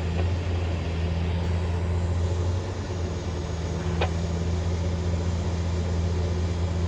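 Large diesel engine of a Hyundai 1250-9 hydraulic excavator running steadily, with a slight dip a little before halfway and a single sharp click about four seconds in.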